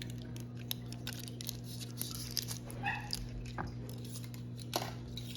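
Small clicks and rustles of hands unwrapping foil-wrapped cream cheese portions and dropping them into a food chopper bowl, over a steady low electrical hum. A brief higher-pitched call sounds about three seconds in.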